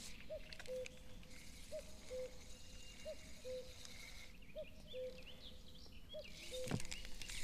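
Birds calling outdoors: a low two-note call repeats about every second and a half, with higher chirping joining in during the second half. A single sharp knock comes near the end.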